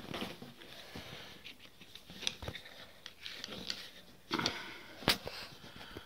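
Faint handling sounds of wire and heat-shrink tubing being worked by hand: soft rustles and light clicks, with a louder rustle a little past four seconds in and a sharp click about a second later.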